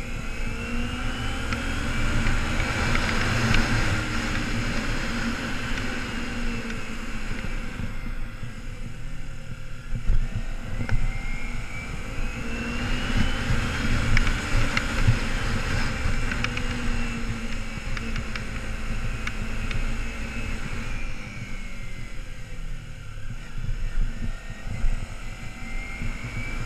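2008 Kawasaki Ninja 250R's parallel-twin engine running under way. Its pitch rises as the bike accelerates in the first few seconds and again about halfway through, then falls as it slows, and starts rising again near the end.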